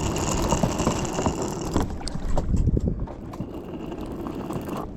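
Water sloshing around a fishing kayak with wind on the microphone and small knocks and clicks of handling, louder for the first two seconds and then settling.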